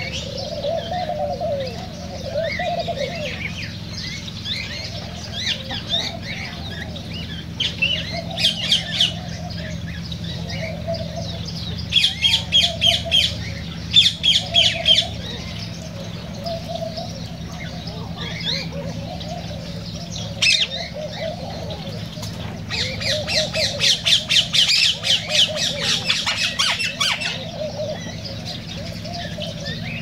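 Cockatiels and other aviary birds calling: a continual low warbling chatter, broken three times by loud bursts of rapid, high chirping and squawking, over a steady low hum.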